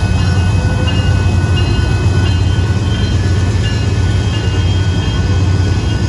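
Union Pacific diesel-electric locomotives passing at close range, their engines running with a loud, steady low drone over the rumble of wheels on the rails.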